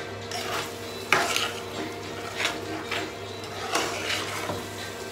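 A metal spatula scrapes and knocks against a metal cooking pot while a thick pork-and-tomato-sauce stew is stirred. There are about six separate scrapes, the loudest a little over a second in, over a steady low hum.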